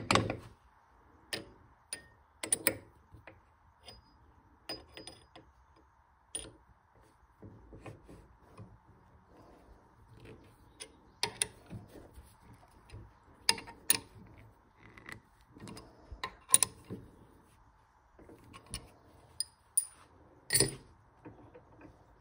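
Irregular metal clicks and knocks from a wood lathe's scroll chuck as a wooden blank is seated and the jaws are tightened with a chuck key. The loudest knocks come at the very start and near the end.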